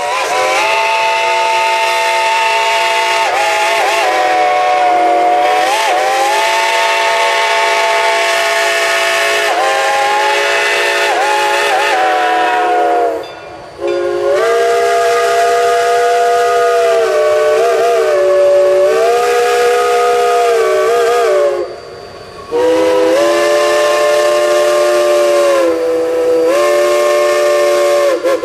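Steam whistles of geared steam logging locomotives blowing three long blasts, broken by short pauses about 13 and 22 seconds in. Several notes sound together, and the pitch sags and bends briefly now and then as the whistle is worked.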